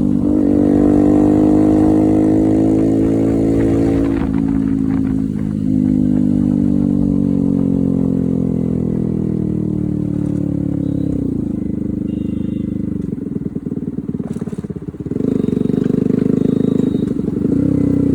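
A modified Yamaha R15's single-cylinder four-stroke engine on the move. It pulls in gear, then its pitch falls slowly as the bike slows. About twelve seconds in it drops to a low, uneven beat near idle, and near the end it picks up again as the bike pulls away.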